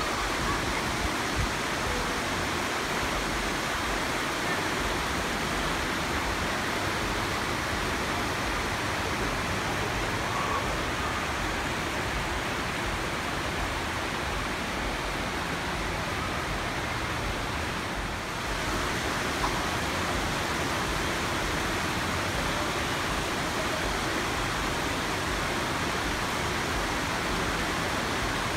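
Shallow creek water rushing steadily over rock ledges and small cascades.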